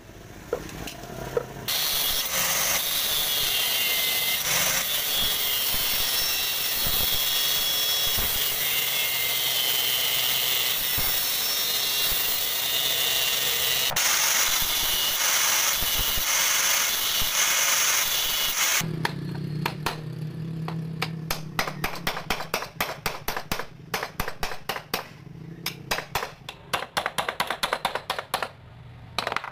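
Small angle grinder with a thin cut-off disc grinding into the steel of a jammed 10 mm drill chuck for about seventeen seconds, then stopping. After that comes a run of quick, sharp metal taps and clicks.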